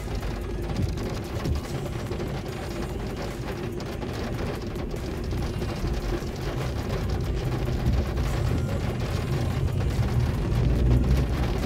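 Steady car engine and road rumble heard inside the cabin, with heavy rain falling on the roof and windshield; it grows a little louder near the end as the car moves off.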